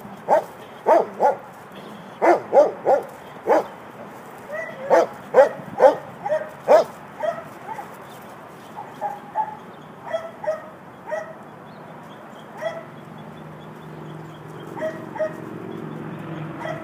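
Dog barking through a chain-link gate at another dog: a quick run of loud, short barks for the first seven seconds or so, then fewer and quieter barks.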